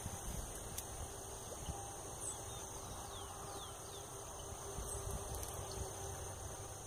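Outdoor ambience: a steady, high insect drone, a few short falling chirps, and a low rumble of wind on the microphone.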